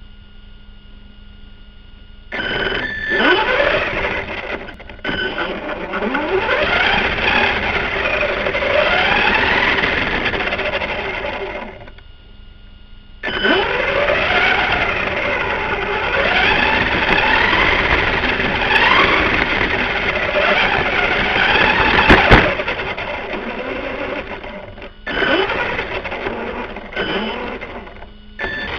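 Electric RC buggy's motor whining in repeated rising and falling pitch sweeps as it accelerates in bursts, with tyre noise over gravel. It drops to a faint steady electronic hum in a short pause about 12 seconds in, and there is a sharp knock about 22 seconds in.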